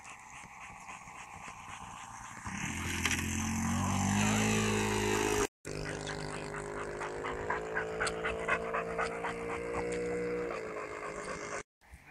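Engine of a 220 cm radio-controlled Cessna 152 model plane in flight. It grows much louder about two and a half seconds in, then runs steadily as its pitch slowly rises, breaking off twice for an instant.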